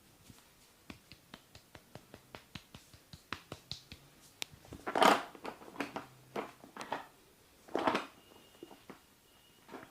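Percussive massage strokes on a person's body: a run of light quick taps, about five a second, then a few louder slaps, the loudest about five seconds in and another near eight seconds.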